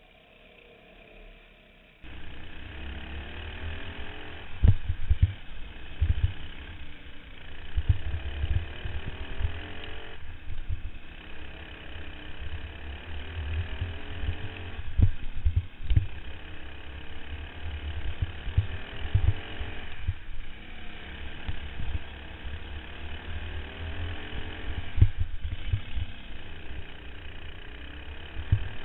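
Racing kart engine heard from an onboard camera, revving hard through the laps. Its pitch rises along the straights and drops into each turn about every five seconds. Many low thumps hit the microphone throughout, after a quieter first two seconds of karts passing heard from trackside.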